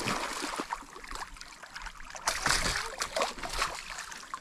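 Water splashing at a surface lure as a giant snakehead strikes it: a loud splash at the start, then shorter splashes and sloshing about two and three seconds in.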